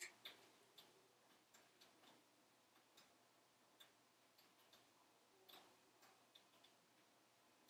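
Faint, irregular crackles and pops from wood logs burning in a closed wood stove, a slightly louder pop at the start and another about five and a half seconds in.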